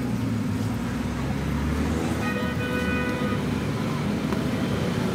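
Steady rumble of road traffic, with a vehicle horn sounding for about a second, a little over two seconds in.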